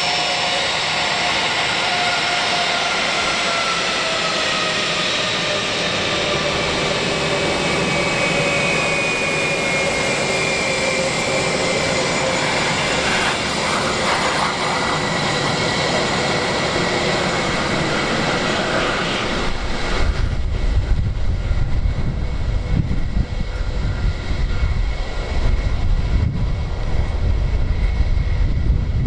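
Airbus A321-200 twin jet engines running at taxi power: a steady whine whose pitched tones sink slightly as the airliner turns. From about two-thirds through, a deep exhaust rumble takes over and the whine fades as the jet's tail swings toward the listener.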